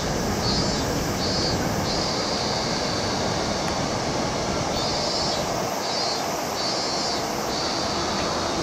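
Steady rumble of city traffic and trains. Over it, a high-pitched buzzing call in short pulses, about two a second, comes in two runs, each ending in a steadier stretch.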